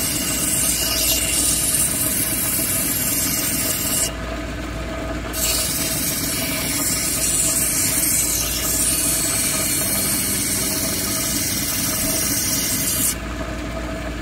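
Wet cabbing machine running, with a steady grinding hiss as a hard plume agate cabochon on a dop stick is held against its grinding wheel. The hiss drops out briefly about four seconds in and again near the end as the stone is lifted off the wheel, leaving the machine's lower running noise.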